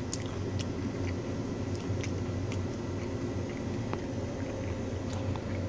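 Faint mouth sounds of someone tasting a spoonful of barbecue sauce, with a few small scattered clicks from a phone being handled, over a steady low hum.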